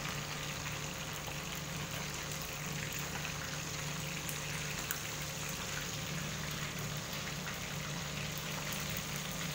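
Whole safi (rabbitfish) frying in hot oil in a frying pan: a steady sizzle and crackle. One light click about five seconds in.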